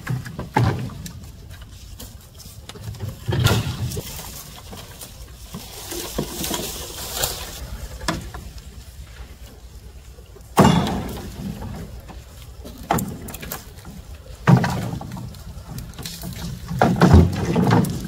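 A handful of knocks and thuds at uneven intervals, with rustling between them.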